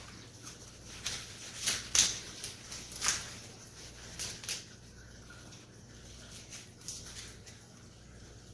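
Irregular light clicks, knocks and rustles of objects being handled, loudest about two and three seconds in, over a faint steady hum.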